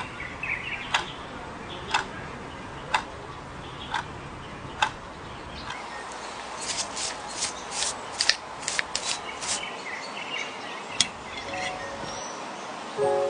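Sharp ticks about once a second, followed about six seconds in by a run of quick, scratchy strokes as a pastry brush spreads syrup over raw duck skin.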